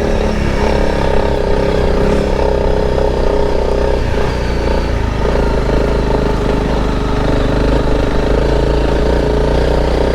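Honda CRF motorcycle's single-cylinder engine running at a steady, even pace under way.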